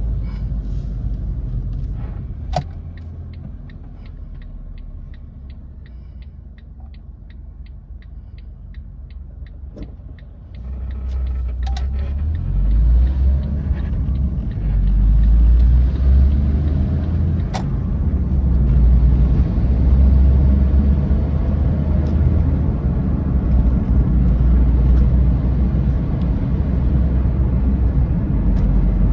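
Smart Fortwo pulling away and accelerating: a low rumble that swells strongly about ten seconds in and stays loud. This is the noise the car makes when accelerating. Before that the car is quieter, with a quick, even ticking of about three ticks a second.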